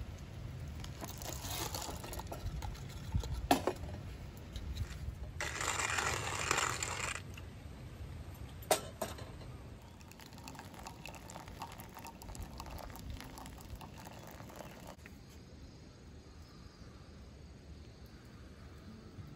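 Hand-cranked coffee mill grinding beans: a crunchy, rattling grind with a couple of sharp clicks, and a louder noisy stretch of about two seconds near the middle.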